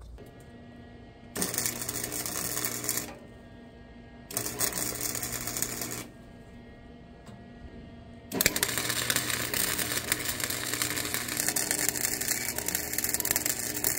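Wire-feed welder welding a patch piece into the truck cab's sheet metal: a steady crackling buzz in three runs, two short ones of about a second and a half each, then a longer one starting a little past the middle.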